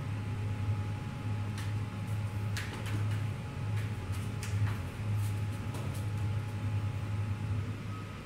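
A steady low hum, with a scatter of light clicks and scratches between about one and a half and six seconds in: a cat's claws on a cardboard pizza box as it paws at a dead rat.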